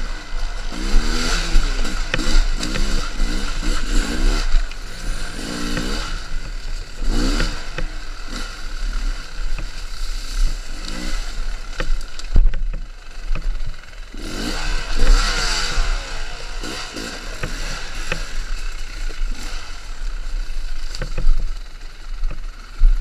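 Enduro motorcycle engine revved in short repeated bursts while riding off-road, its pitch rising and falling every second or two, with scattered knocks and clatter.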